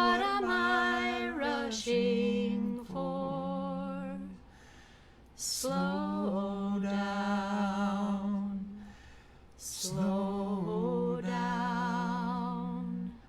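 Unaccompanied voices singing a slow, gentle song in harmony, with long held notes and short pauses between phrases.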